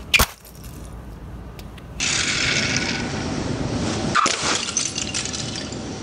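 One sharp crack of LEGO bricks breaking under a stomping sneaker on concrete, just after the start. From about two seconds in comes a steady outdoor hiss, with a single light tap a little after four seconds.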